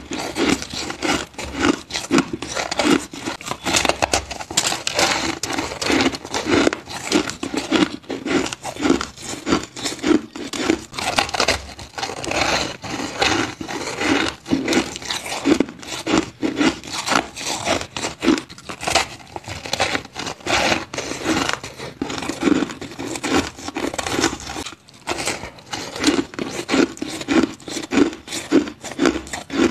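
Biting and chewing a lump of purple crushed ice: dense crunching and crackling of the ice crystals breaking between the teeth, with crunches coming one to two times a second.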